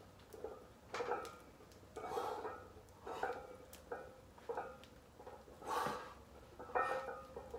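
A man breathing hard through heavy paused bench press reps with a 295 lb barbell, forceful breaths every second or so, mixed with short metallic clinks from the iron plates on the bar.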